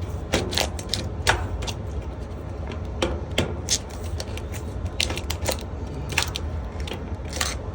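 Furnace filter being bent and pushed into its slot, its cardboard frame and pleated media crackling and clicking irregularly, over the steady low hum of the running furnace blower.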